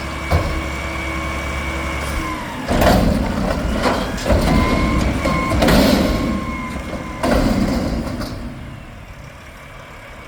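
Mack McNeilus front-loader garbage truck working: a steady mechanical whine over the engine, then a run of loud, irregular metal bangs and clanks that fade near the end.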